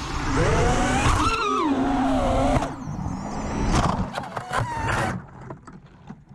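FPV quadcopter's motors whining, the pitch rising and falling with the throttle. About four seconds in comes a run of sharp knocks and clicks as it flies into tree branches, and then the motor sound dies away.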